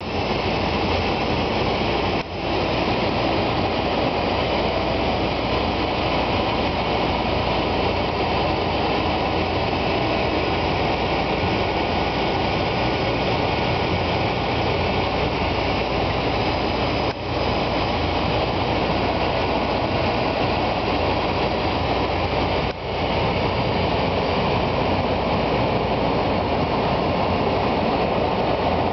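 Steady cockpit noise of a de Havilland Canada Dash 8 on approach: its twin turboprop engines and propellers running, mixed with the rush of air past the nose. The noise dips briefly three times.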